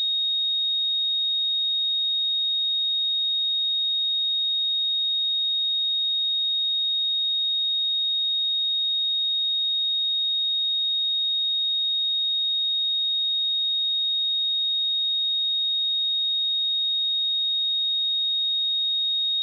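A pure 3735 Hz sine-wave test tone, one steady high-pitched tone held at constant level.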